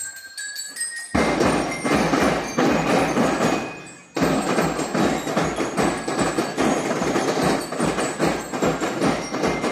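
Background music: a few falling bell-like notes, then a full track with a steady beat comes in about a second in, breaking off briefly a little after four seconds before carrying on.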